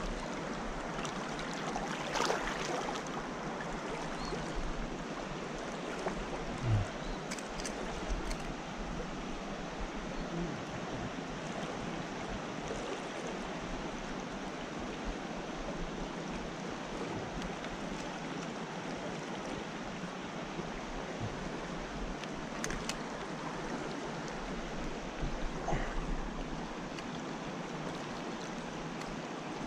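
Shallow rocky creek rushing steadily through riffles, with a few faint clicks from the fly gear.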